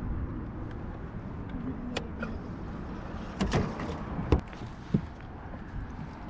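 A fishing boat's live-well aerator pump running with a steady low hum. A few knocks against the boat break in, the sharpest a little after four seconds in.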